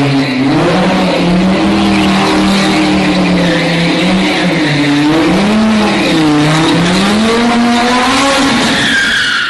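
Lamborghini engine revving up and down again and again, with tyres squealing under the wheelspin of a drift or burnout.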